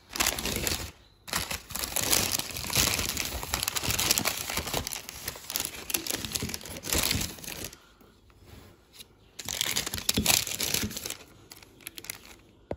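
Paper bag and paper food wrapper crinkling and rustling as they are opened and peeled back by hand, in long spells with a lull about two-thirds of the way through.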